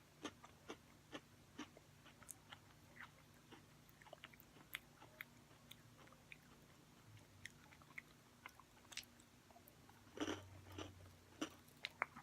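Quiet close-up chewing of Oreo cookies filled with popping candy cream: faint, scattered little clicks and crunches, a bit busier about ten seconds in.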